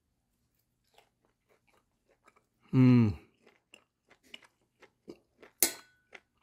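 Close-up chewing of a bite of steak, with small wet mouth clicks, and a man's pleased hummed "mmm" falling in pitch about three seconds in. A knife clinks sharply on the ceramic plate, with a brief ring, near the end.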